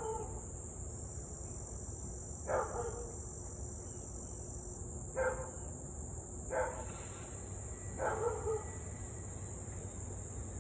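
A husky barking in short single barks spaced one and a half to two and a half seconds apart, the last one doubled. A steady high drone of insects runs underneath.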